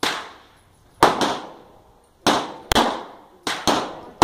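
Handgun shots at a range, about seven in a little over four seconds, unevenly spaced with some in quick pairs, each sharp crack trailing off in a short echo.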